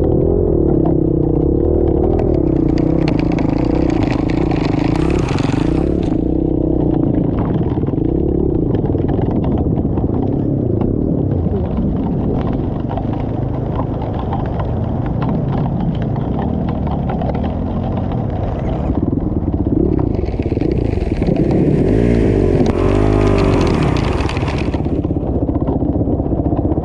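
Enduro motorcycle engine running through the whole stretch, its pitch rising and falling as the throttle is worked. A loud hiss joins in twice: a few seconds in, and again for several seconds near the end.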